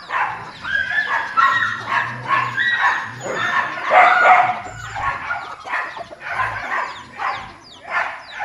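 A flock of chickens calling over one another, many short cries rising and falling in pitch and overlapping without a break.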